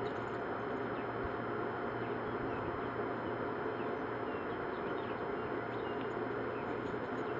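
Steady outdoor background hiss, with faint short bird chirps now and then.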